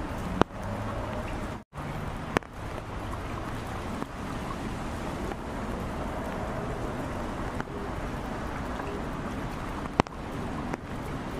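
Steady rain falling on a flooded street's standing water, with a few sharp ticks: about half a second in, about two and a half seconds in, and near the end.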